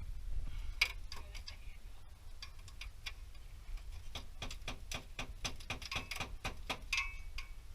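Irregular light clicks and taps, a few a second and thickest in the second half, as small car parts are handled; a faint low hum runs underneath.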